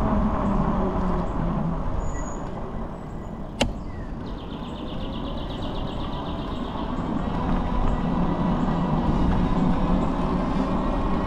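Steady low rumble of passing vehicles that dips a few seconds in and swells again toward the end, with one sharp click and a buzzy high trill lasting about two and a half seconds.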